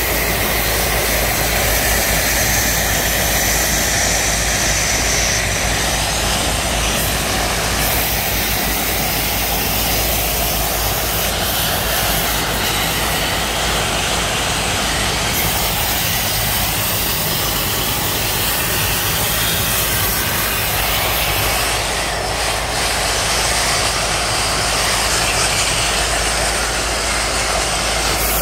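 Garden hose spraying water into a dirt-clogged air-conditioning condenser coil, a steady hiss and splatter of water on the metal fins and louvered panel. The running condenser unit adds a steady mechanical drone underneath.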